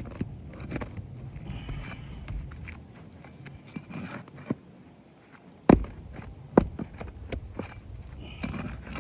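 Asphalt roof shingles being worked loose by hand with a tool: irregular scraping and crackling as the sealed shingles are pried up, with two sharp knocks a little past the middle.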